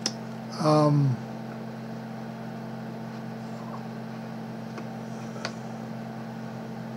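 Steady low electrical hum with a faint hiss under it, with one faint click about five and a half seconds in.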